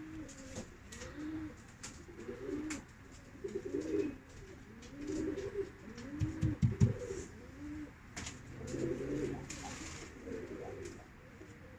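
Pigeons cooing, several repeated low, arching coos overlapping one another. A few brief low thumps come about six and a half seconds in.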